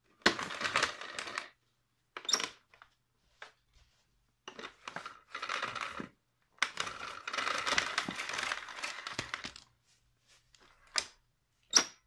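Panasonic MC-E62 cylinder vacuum cleaner's cord rewind reeling the mains cord in, a rattling whirr in several bursts as the rewind pedal is pressed and released, with two sharp clicks near the end.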